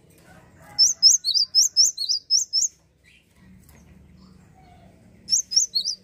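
Cinereous tit (gelatik wingko) singing: a quick run of sharp, high notes, about four a second, alternating between a higher and a lower pitch, then a short second burst of three or four notes near the end.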